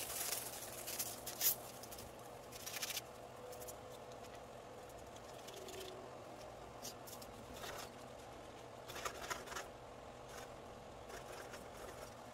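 Scattered short rustles, clicks and scrapes of cooking at a frying pan on the stove, such as a seasoning packet being torn and shaken and a utensil stirring the pan, over a faint steady hum.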